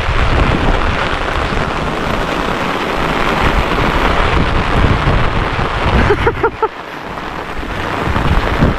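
Heavy rain pouring steadily, a dense loud hiss. A little after six seconds in, four quick short pitched notes sound in a row.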